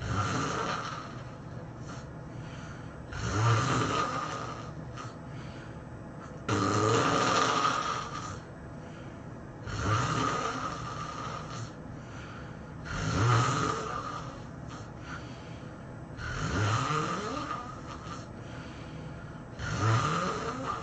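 A person snoring at high intensity: seven loud snores, about one every three and a half seconds, each lasting a second or so with a wavering pitch.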